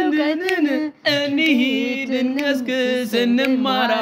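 A voice singing a song in Amharic that praises knowledge and learning, holding long notes, with a brief break about a second in.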